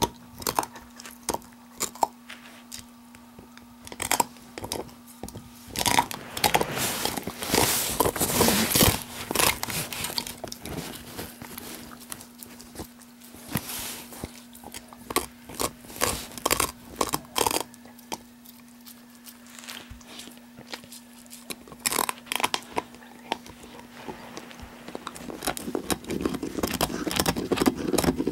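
Blue heeler (Australian cattle dog) gnawing on a big bone: irregular crunching, cracking and scraping of teeth on bone, densest about six to nine seconds in.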